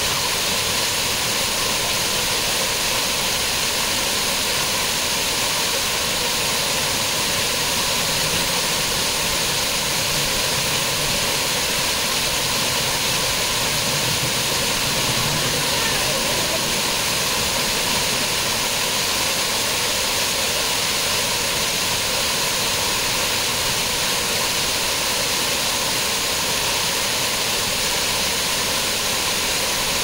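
Small waterfall cascading over rock ledges: a steady, even rush of falling water.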